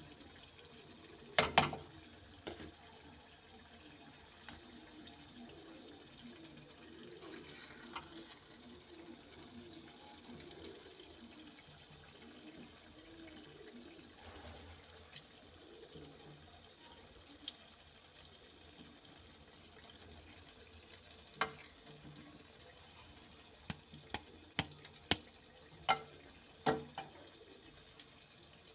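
Thick curry being stirred with a wooden spoon in a metal pot, soft and wet, with sharp knocks of the spoon against the pot: one about a second and a half in, and a cluster of several near the end.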